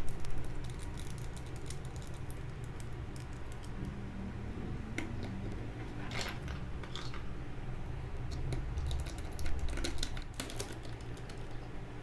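Small plastic clicks and taps of Valk 3 speedcube pieces being handled and fitted together during reassembly, irregular and sparse, with a denser cluster of clicks about two-thirds of the way in.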